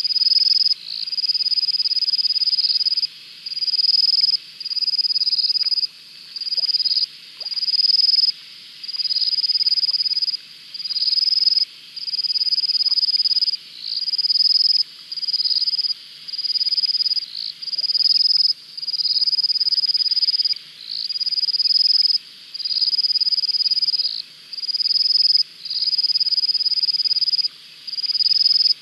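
Night chorus of calling animals: a loud, high-pitched trill about a second long, repeated over and over with short breaks, over a fainter continuous chirring.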